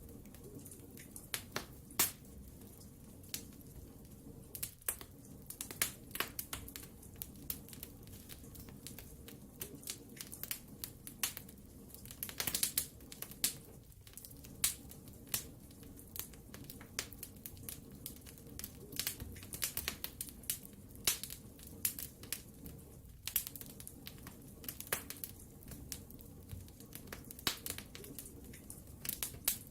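Wood fire in a fireplace crackling, with irregular sharp pops and snaps over a low steady hiss of the flames, and a quick run of crackles about halfway through.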